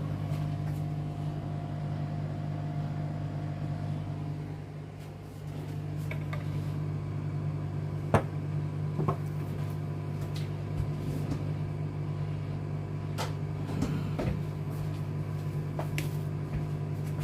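Microwave oven running with a steady low hum while it cooks a bowl of quick dhoi (yogurt) mixture, with several sharp clicks in the second half.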